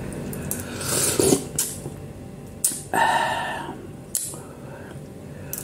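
Slurping and chewing instant noodles off a spoon, with a few light clicks of the spoon against the bowl.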